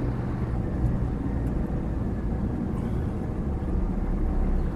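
Scania R450 truck's diesel engine running with road noise, a steady low rumble heard from inside the cab.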